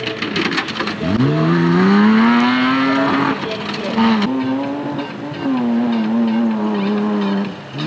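Off-road race trucks' engines revving hard at high revs as their tyres spin through mud. One engine climbs steeply in pitch from about a second in and holds high. After an abrupt change about four seconds in, a second engine is held at high revs until shortly before the end.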